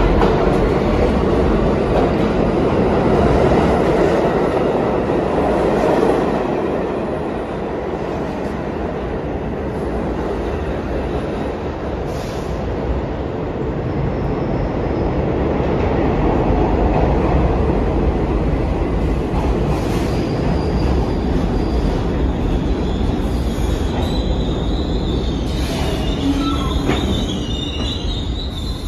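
New York City subway train rumbling along the track through an underground station, with steel wheels squealing near the end.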